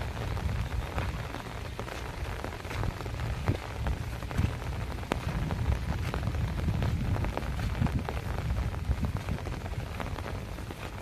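Heavy rain falling, with many sharp drop taps close by over an even hiss and a low rumble underneath.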